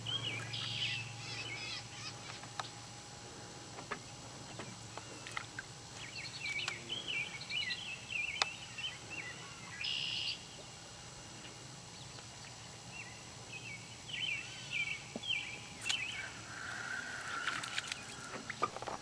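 Songbirds singing and chirping, many short rising and falling calls overlapping with a few scattered clicks.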